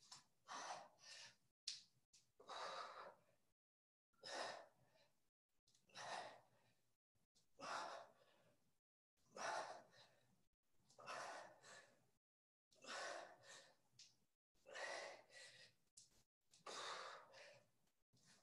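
A person breathing hard from exertion during a workout: short, forceful breaths, about one every one and a half to two seconds.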